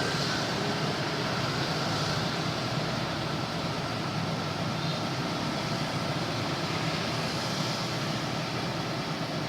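Backhoe's diesel engine running steadily, with a constant low hum.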